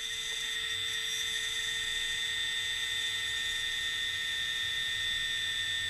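High-speed rotary carving handpiece running with a steady high whine as its small bit lightly cuts into warthog tusk. The pitch holds constant: the bit is worked so lightly that the motor's RPM does not drop under load.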